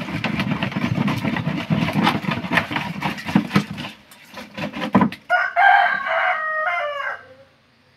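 Spotted scat (kiper fish) tipped out of a plastic jerrycan onto a heap of fish on concrete, making a dense run of wet slaps, flapping and clatter for about four seconds. About five seconds in, a rooster crows once for about two seconds.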